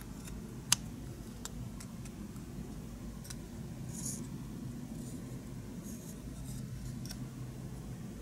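Small plastic model car parts clicking and rubbing as they are handled and fitted together, with one sharp click about a second in and a few fainter ticks and scrapes after, over a low steady hum.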